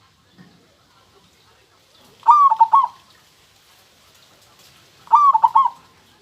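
Zebra dove cooing: two short phrases of quick, clipped coo notes, each about half a second long and about three seconds apart.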